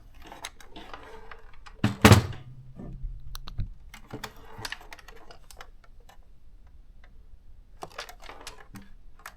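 Plastic clicks and knocks from a Canon thermal typewriter being handled and opened to show the ink cartridge inside, with one louder knock about two seconds in.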